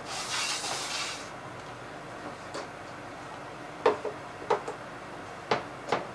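Kitchen clatter: a brief hiss at the start, then a handful of sharp clicks and knocks of utensils and dishware set down and handled on the counter, the loudest about four seconds in.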